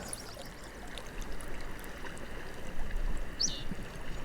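Steady rushing and trickling of a small spring creek, with one short, high, falling bird chirp about three and a half seconds in.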